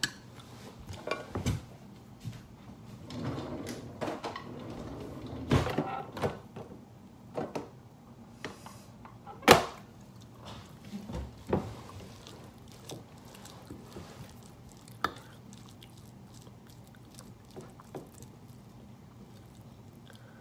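Scattered kitchen handling sounds as rice is served from an electric rice cooker onto a plate: clatters, scrapes and knocks, with a noisier stretch a few seconds in and one sharp knock, the loudest, about nine and a half seconds in.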